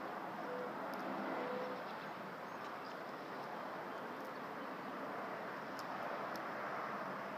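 Steady outdoor background noise, a hiss without any clear pitch. Two soft, low, short hooting notes come in the first two seconds, and a few faint ticks are scattered through.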